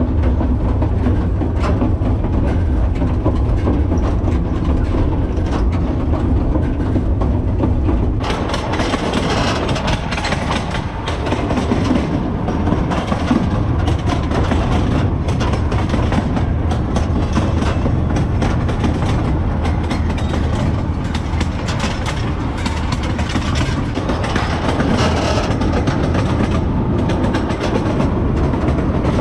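Narrow-gauge (750 mm) passenger wagon rolling along the track: a steady rumble thick with rattling and knocking from the wheels on the rails. The rattle turns harsher about eight seconds in.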